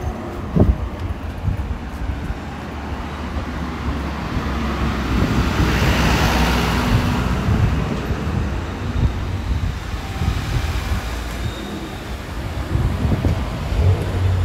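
A vehicle passes by, swelling to a peak about six seconds in and then fading, over a steady low rumble of urban traffic.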